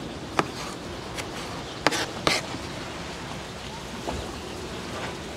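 Kitchen knife cutting through tomatoes onto a plastic cutting board: a series of sharp taps of the blade hitting the board, the loudest pair about two seconds in, over a steady low hiss of sea and wind.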